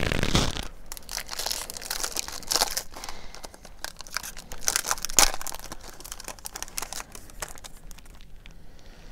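Trading card pack wrapper crinkling and tearing as it is opened by hand. The crackles come in irregular bursts, loudest at the very start and about five seconds in, and grow fainter near the end.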